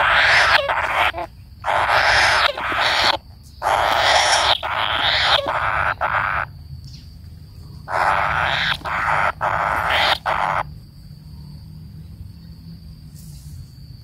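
Kingfisher nestlings giving harsh, hissing begging calls in bursts of about a second each, several in a row, falling quiet about three-quarters of the way through.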